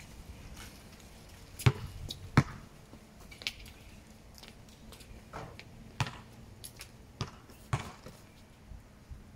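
Basketball bouncing on a hard court: a series of separate, irregularly spaced thuds, the two loudest close together about two seconds in.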